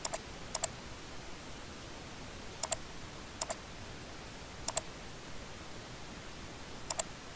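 Computer mouse button clicking six times, each click a quick double tick of press and release, over a steady low hiss.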